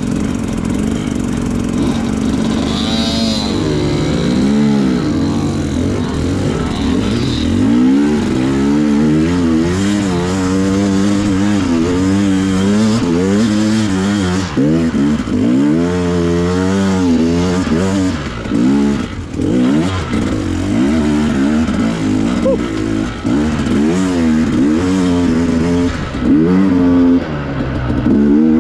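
Dirt bike engine revving up and down while riding singletrack, its pitch rising and falling every second or two.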